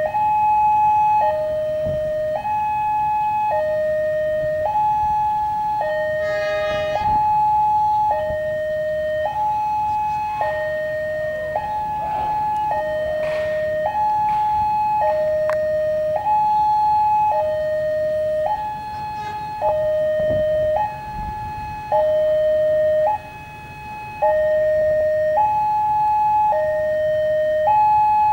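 Railway level-crossing warning siren sounding its two-tone alternation, a higher and a lower tone swapping about every second, without a break.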